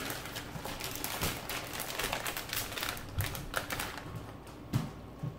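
Plastic bag of shredded cheese being handled and opened, crinkling with a quick run of small crackles and clicks, thinning out to a couple of sharper clicks near the end.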